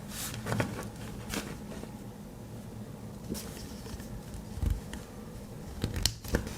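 Scattered light clicks and knocks, a handful of them at uneven intervals, with a duller thump near the middle, over a faint steady background.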